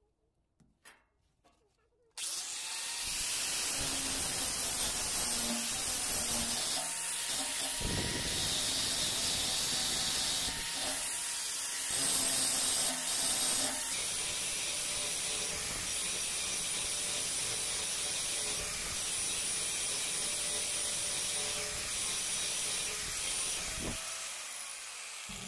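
Angle grinder grinding the end of a steel chisel, starting about two seconds in after a few faint clicks; a steady hissing grind with a high whine over it.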